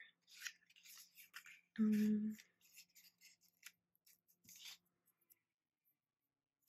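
Paper sticker sheets and washi tape rustling and clicking as they are handled on a desk, in short scattered sounds that stop about five seconds in. A brief hummed 'mm' about two seconds in.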